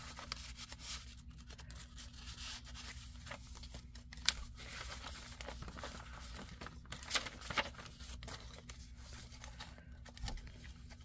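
Paper rustling and crinkling as the pages of a handmade paper journal are turned and tucked cards and tags are handled, with a few sharp paper snaps, one about four seconds in and two close together past the seven-second mark. A faint steady hum runs underneath.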